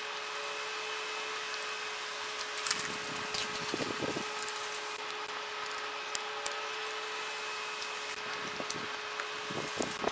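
A person eating noodles from a plate: a spoon and fork clink and scrape on the plate a few times, with mouth sounds of eating, over a steady hum with one constant tone.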